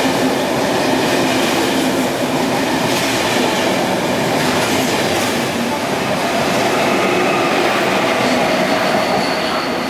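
Kowloon–Guangzhou through train (KTT) running through the station without stopping: a loud, steady rumble of wheels on rail with some clickety-clack, easing slightly near the end.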